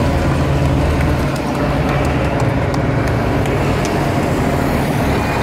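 Race-convoy cars and motorcycles driving slowly past close by, a steady low engine hum.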